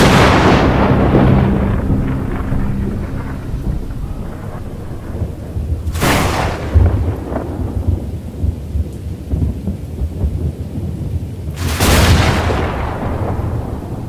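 Three thunderclaps about six seconds apart, each a sharp crack that rolls away into a low rumble, with a steady rain-like hiss between them.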